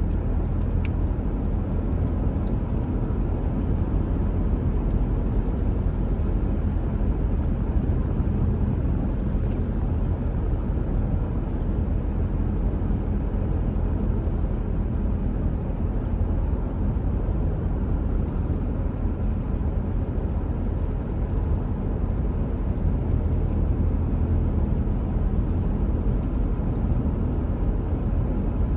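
A car driving at a steady speed: an even, low rumble of tyres and engine with a lighter hiss above it.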